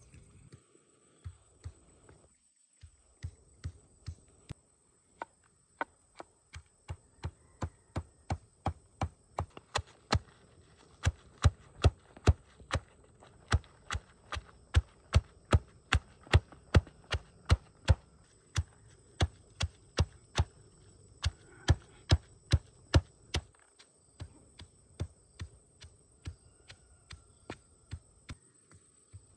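A pestle pounding red chillies and salt in a mortar: steady knocks about twice a second, louder through the middle and softer near the start and end, with a brief pause about two-thirds of the way in.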